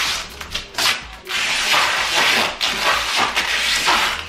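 Duct tape being peeled off a body wrapping in long pulls: a rasping rip. A short rip comes just before a second in, then long continuous ripping with brief breaks.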